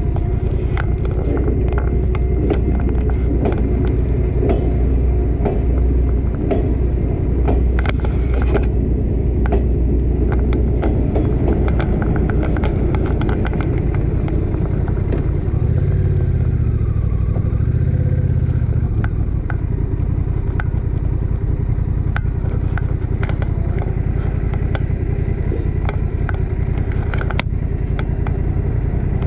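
Motorcycle engine running at low speed with a steady low thrum, its note rising and falling briefly just past halfway as the bike moves off and slows again.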